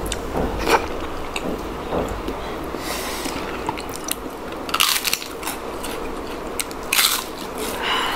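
Close-up eating sounds: chewing with several crunchy bites a couple of seconds apart.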